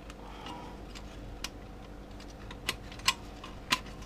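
A few sharp, irregularly spaced metal clicks as the center support retaining ring, a thin snap ring, is worked out of its groove inside a Ford AOD automatic transmission case.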